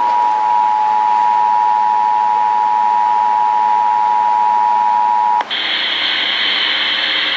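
Emergency Alert System attention signal from a radio: a loud, steady two-tone beep for about five seconds, cutting off sharply. It is followed by about two seconds of radio hiss before the warning message begins.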